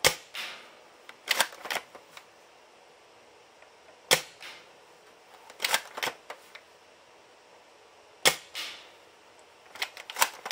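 Gang Jiang M24 bolt-action gel blaster firing three shots about four seconds apart, each a sharp crack. About a second and a half after each shot comes a quick run of clicks as the bolt is cycled for the next gel.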